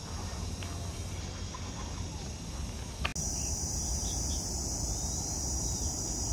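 A steady, high-pitched insect chorus sets in abruptly after a sharp click about three seconds in, with a few faint short chirps over it. Before that there is only a low rumble.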